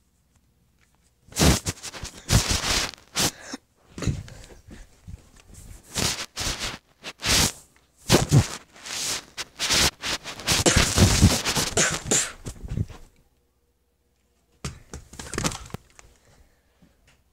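Handling noise on a phone's microphone: irregular rubbing and scraping with a few knocks, in bursts from about a second and a half in until about two-thirds through, then a short burst near the end.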